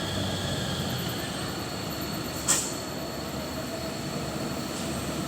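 Truck engine running steadily, with a brief hiss about two and a half seconds in.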